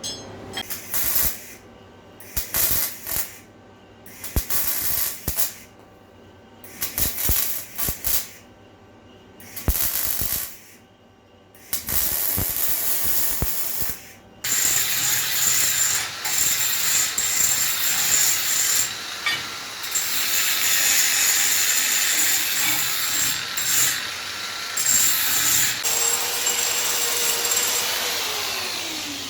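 Metalworking power-tool noise on steel. About ten short bursts of a second or so come first, with quiet gaps between them. Then from about halfway a rotating tool runs continuously with a high whine and winds down near the end, its pitch falling as it spins down.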